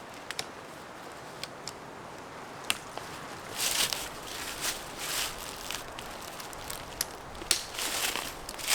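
Footsteps through brush on the forest floor, with a few sharp twig snaps and irregular swishes of rustling.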